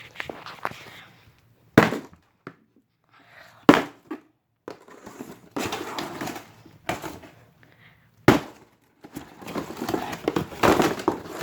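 Hammer blows on a cardboard box: three loud sharp whacks and a few lighter knocks, with cardboard rustling and tearing between them.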